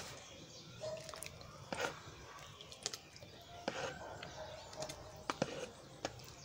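A metal spoon scooping baking soda out of a plastic jar: faint scattered scrapes and clicks as the spoon digs into the powder and knocks against the jar.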